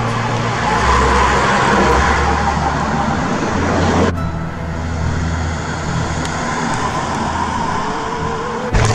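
Road noise from motor vehicles on the race route, a steady rumble with a hiss of tyres on asphalt. It drops abruptly to a lower, quieter rumble about four seconds in.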